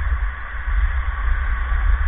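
Steady low rumble and hiss of wind buffeting the microphone of a camera worn during ice hockey play, with no distinct knocks or voices.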